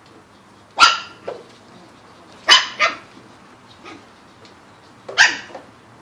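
Shih Tzu puppies barking: sharp, high barks in three bursts a couple of seconds apart, the middle one a quick double bark.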